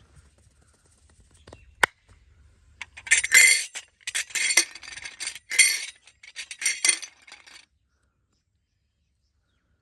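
Close-up massage hand noises: a single sharp click, then about four seconds of crackly rubbing and patting in bursts that stop suddenly.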